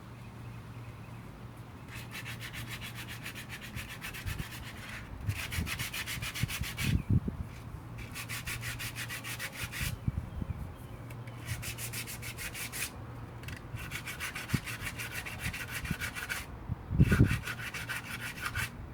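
Coarse 50-grit sandpaper rubbed by hand over epoxy putty filling the cracks of a Bakelite steering wheel rim: quick back-and-forth strokes in half a dozen spells with short pauses between. A low steady hum runs underneath, and there are a couple of thumps.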